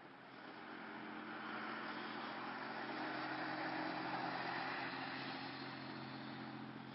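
A vehicle passing on a snow-covered road: its tyre noise swells to a peak about halfway through and fades away, over a steady low engine hum.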